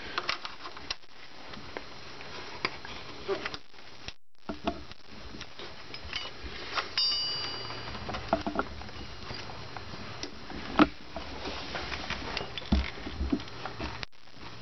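Scattered small clicks, taps and light rattles of hands and hand tools working plastic connectors and line fittings in a car's engine bay, with the sharpest click about eleven seconds in. A short silent gap comes about four seconds in.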